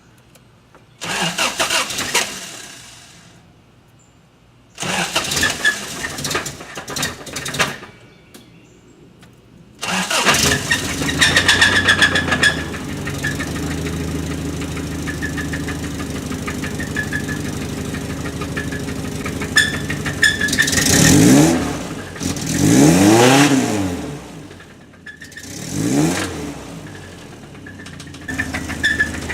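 Toyota 22R-E four-cylinder engine cranking twice without catching, then starting on the third try about ten seconds in and running steadily. Near the end the throttle is blipped three times, the revs rising and falling each time.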